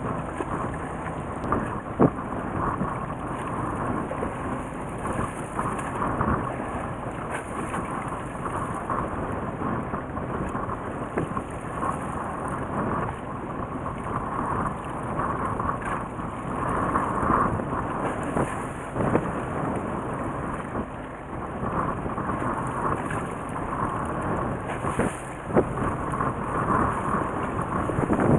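Steady rushing, rumbling noise of wind and water on a fishing boat, with a few sharp knocks.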